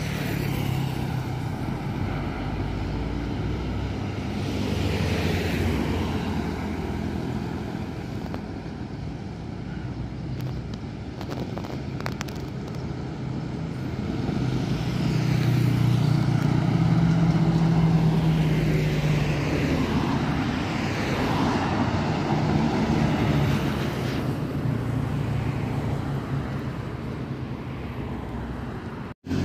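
Intercity buses and other traffic passing on the road: diesel engines and tyre noise swell and fade, loudest a little past halfway as a bus goes by. The sound cuts out briefly near the end.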